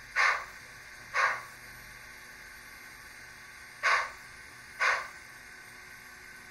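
Gauge 1 model train running slowly past, heard as short hissing bursts in pairs about a second apart. One pair comes at the start and another about three seconds later, over a steady faint hiss.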